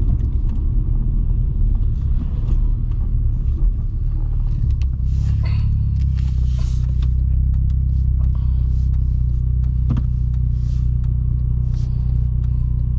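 A car being driven, heard from inside the cabin: engine and road rumble, rougher for the first few seconds and then a steady low drone from about five seconds in, with a few faint clicks.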